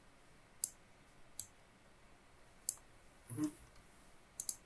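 Computer mouse button clicks, five in all and irregularly spaced, the last two a quick double click near the end.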